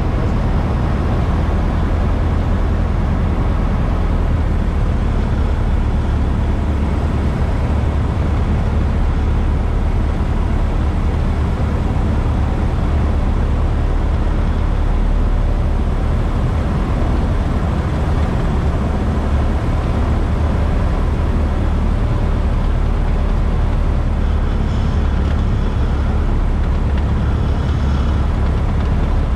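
Cessna 172's single piston engine and propeller droning steadily as heard inside the cockpit, mixed with the rush of air over the airframe, during a descending approach to the runway.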